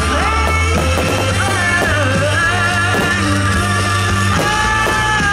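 Background rock music: held melody lines over a steady, continuous bass line.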